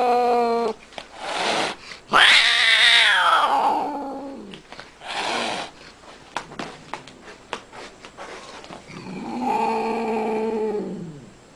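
Domestic cat giving long, drawn-out meows: one trails off just after the start, a loud one about two seconds in falls in pitch, a short one follows, and a last long call comes near the end. A few faint clicks fall between the calls.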